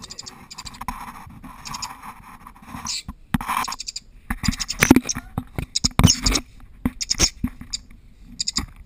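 Angry stoat chattering in short runs of high squeaks, with sharp clicks and knocks in between.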